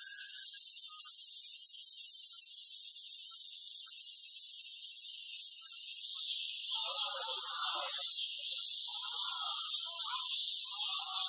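A chorus of cicadas buzzing in a loud, steady, high-pitched drone that shifts and broadens about six seconds in. Faint lower chirps come and go in the second half.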